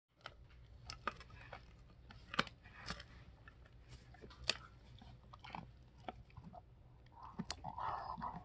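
Doberman puppy chewing a bully stick: irregular gnawing with sharp crunching bites, and a longer stretch of chewing near the end.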